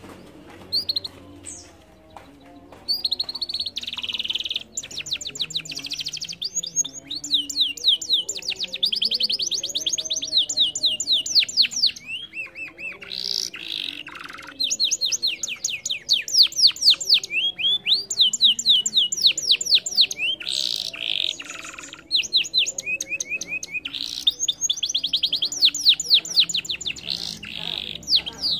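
Domestic canary singing a long, fast song of rapid trills and rolls of quickly repeated high notes. It starts in earnest about three seconds in and comes in long phrases with short breaks.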